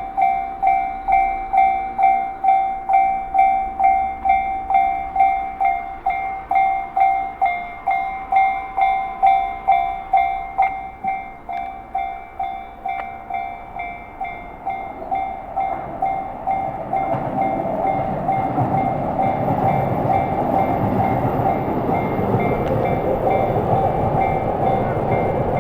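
Japanese level-crossing warning bell ringing at about two strokes a second. From about 16 s a Yamanote Line electric train rumbles over the crossing and becomes the loudest sound, while the bell keeps ringing beneath it.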